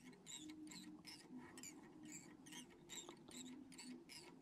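Near silence, with faint rhythmic swishes about three a second: fly-tying thread being wrapped from a bobbin around the hook to build up the fly's head.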